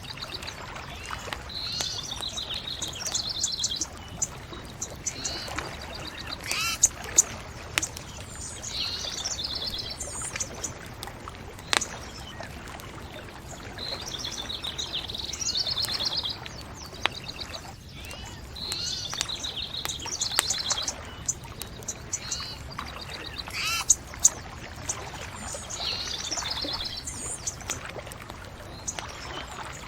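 Songbirds singing short, repeated trilled phrases every few seconds over a steady hiss. A bonfire crackles with a few sharp pops, the loudest of them about 7, 12 and 24 seconds in.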